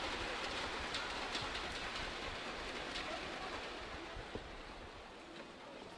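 Large arena crowd applauding and cheering after a point is won, the noise slowly dying away.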